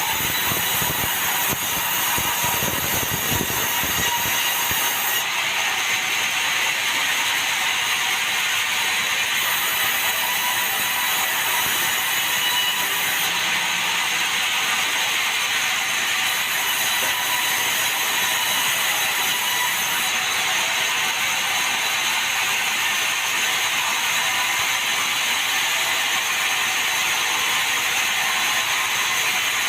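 Sawmill saw running steadily while cutting meranti timber, a loud continuous mechanical noise with no breaks.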